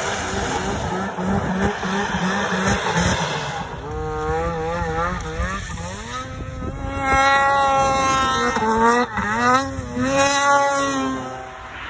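Ski-Doo 850 two-stroke snowmobile at high revs with its track spinning and skidding on wet pavement, a rasping, fast-pulsing noise. About four seconds in it changes to the engine revving up and down again and again as the sled rides over snow, loudest in the second half.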